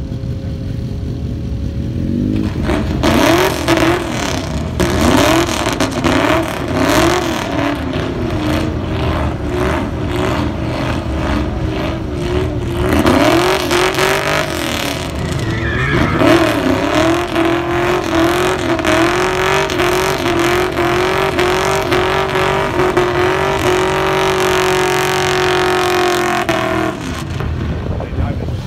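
Car engine revving hard through a burnout, the rear tyres spinning and smoking. The revs rise and fall over and over at first, then from about halfway are held high and steady, climbing slowly, before the throttle is let off shortly before the end.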